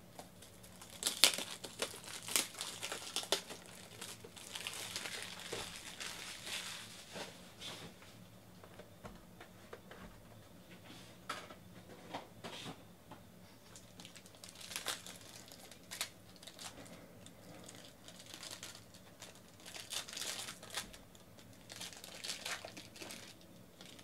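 Plastic wrapping on a pack of trading cards crinkling and tearing as it is handled and opened, in irregular crackles and rustles. The sharpest crackles come a second or two in.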